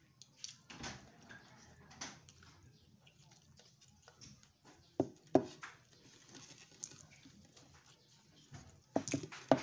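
Close-up eating sounds: chewing and occasional wet lip smacks. There are two sharp smacks about halfway through and a quick cluster near the end.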